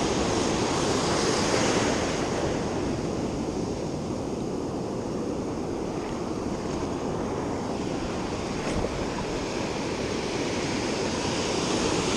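Ocean surf washing up the beach in a steady rush of waves.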